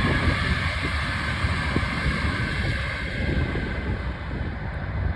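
A passing train's running noise, fading over the last couple of seconds, with wind buffeting the microphone.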